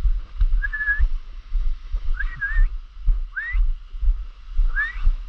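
Four short whistled notes, most of them rising, spaced about a second apart, over a low rumble.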